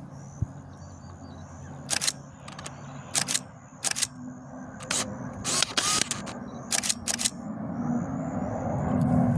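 Camera shutter clicking, single shots and quick runs of frames spread over several seconds. Under the clicks, the low sound of approaching PC-21 turboprop aircraft swells near the end.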